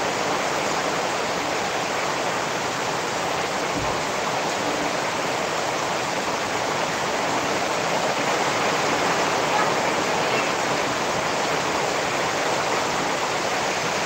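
Rain falling steadily, a dense even hiss that holds level throughout.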